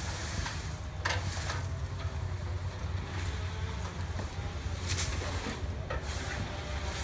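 Dry pine needles and storm debris rustling as gloved hands pull handfuls out of a roof gutter, with sharper rustles about a second in and around five and six seconds, over a steady low rumble.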